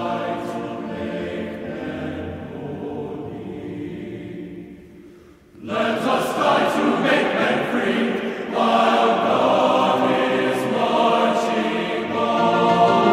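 Background music of sustained choral singing. It fades away about five seconds in, then a louder passage comes back in abruptly just before the sixth second.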